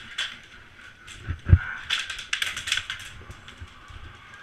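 Airsoft guns firing: quick runs of sharp clicks, with one loud low thump about a second and a half in.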